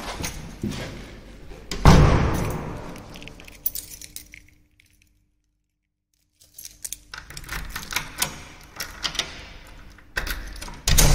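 Metal hardware of a hotel room door being unfastened: a swing-bar guard and door chain clicking and rattling, with a heavier knock about two seconds in. Sound cuts out completely for a couple of seconds, then the clicking and rattling of the chain and handle resume.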